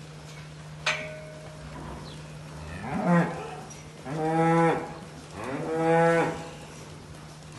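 Holstein dairy cows mooing three times: a shorter call about two and a half seconds in, then two longer moos of about a second each.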